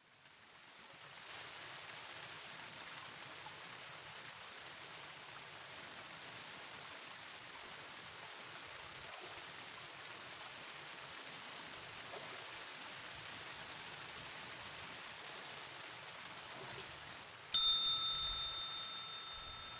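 A steady hiss, then one sharp bell ding near the end that rings on with clear tones and fades slowly.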